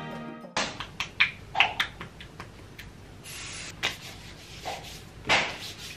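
Music ends about half a second in, followed by quiet handling noise: soft rustling of fabric and bedding with scattered light clicks and taps as hands move on a bed, and a louder rustle about five seconds in.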